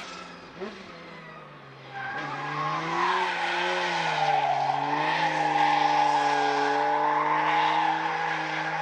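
2JZ inline-six engine of a Toyota GR86 drift car running at moderate revs as the car slides through a corner, its note wavering up and down, with tyre squeal over it. It gets louder about two seconds in.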